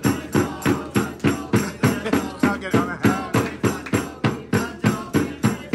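Music with a fast, even beat, about three or four sharp percussive hits a second, like a tambourine or hand claps, with voices over it.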